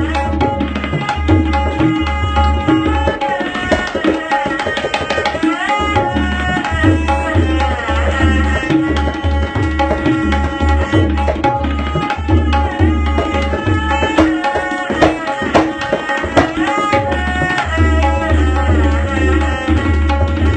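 Solo tabla playing: fast strokes on the ringing, pitched dayan over deep bass strokes on the bayan, with some sliding pitches.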